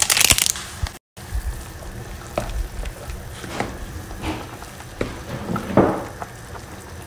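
Seasoning granules shaken from a paper sachet into a pot, then fish soup at a boil being stirred with a spoon, bubbling steadily. The spoon knocks against the pot several times.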